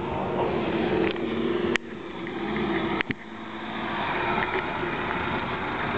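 Engine of a lifted 4x4 minivan pulling up a sandy dirt slope, steady and getting louder as it comes close, with a couple of sharp clicks along the way.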